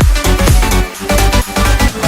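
Electronic dance music with a steady kick-drum beat and synth notes.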